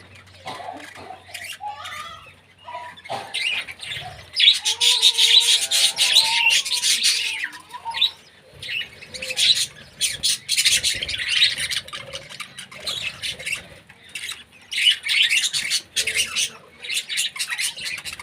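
Small birds chirping and squawking in busy stretches of rapid high calls, broken by short lulls, with a few lower calls mixed in about four to eight seconds in.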